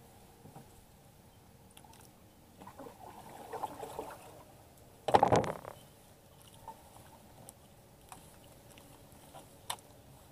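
Water lapping faintly against the hull of a small boat, with a short loud burst of noise about five seconds in.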